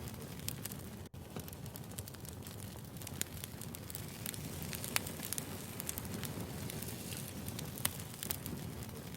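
Wood fire burning: a steady low rustling hiss with scattered sharp crackles and pops from the burning logs. The sound cuts out for an instant about a second in.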